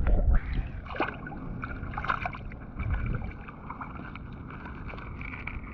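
Waterside ambience: birds chirping over water sloshing, with a faint steady high whine. Wind on the microphone rumbles in the first half second.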